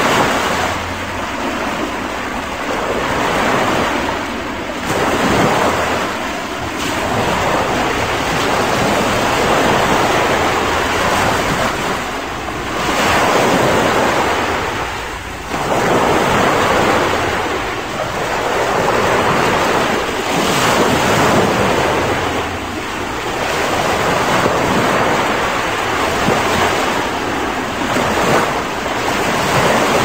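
Small waves breaking and washing up a sandy beach. The surf swells and eases every few seconds, with a brief lull about halfway through.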